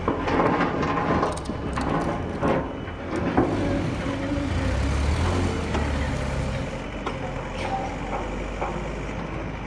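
A heavy vehicle engine running, its low rumble swelling for a moment around the middle, with scattered clicks and knocks mixed in.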